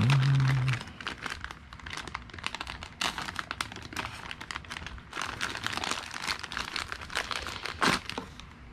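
Clear plastic packaging bags crinkling and crackling as they are handled and pulled open, in quick irregular rustles. A short low hum of a voice sounds in the first second.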